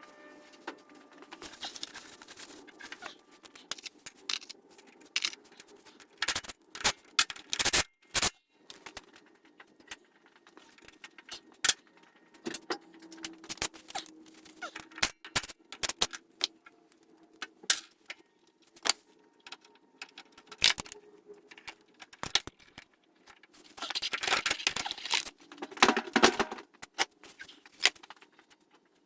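Scattered clicks, clinks and knocks of parts and tools being handled, with a denser stretch of scraping and rubbing about three quarters of the way through.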